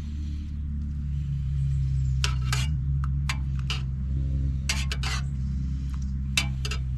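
A series of sharp clinks and knocks, about eight to ten spread irregularly, over a steady low hum.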